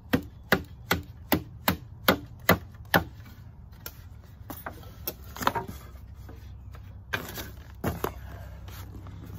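Wooden knocks from teak chair parts as they are worked into their slots by hand. There are eight sharp knocks in quick succession, about two and a half a second, then a few scattered knocks later on.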